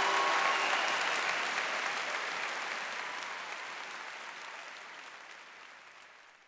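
Audience applause, a dense even clapping that fades out steadily to nothing.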